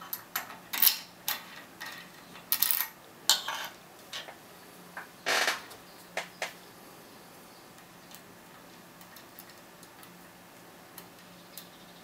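Key clicking and scraping in the keyway of a six-pin Bricard Médial brass lock cylinder as it is worked and pulled out. There is a run of sharp metallic clicks and short scrapes over the first six seconds or so, with the longest scrape about five seconds in, then only a few faint ticks.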